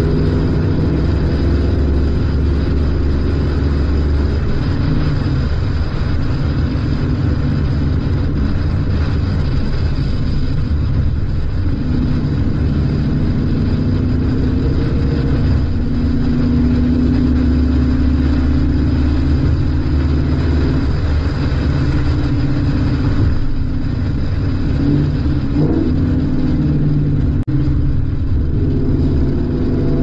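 Ford Mustang GT's V8 exhaust running under way as the convertible cruises with the top down, its note stepping up and down a few times with throttle, over steady wind and road noise.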